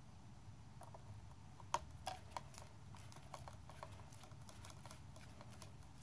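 Linesman's pliers twisting electrical wires together for a splice: a run of small metallic clicks and ticks, the sharpest about two seconds in and lighter ones after, over a faint low hum.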